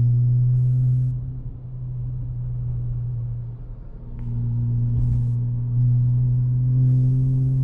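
Porsche Cayman S with a Fabspeed race exhaust, a steady low droning buzz. It is loud for about the first second, eases off, and swells again about four seconds in. This is the drone the owner finds incredibly annoying and is trying to isolate.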